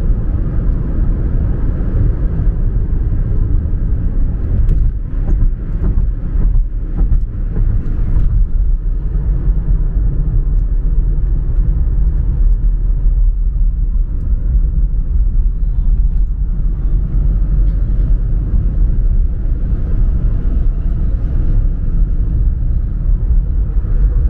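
Steady low rumble of a car driving at road speed, its engine and tyres on the highway, with a few light knocks about five to eight seconds in.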